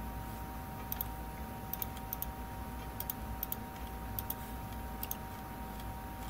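Computer mouse buttons clicking, mostly as quick press-and-release pairs, about seven times over a few seconds, against a steady faint hum.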